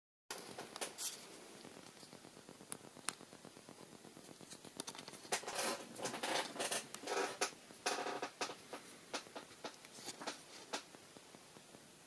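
Close handling noise: scattered light clicks and scratchy rustling, busiest from about five to eight seconds in.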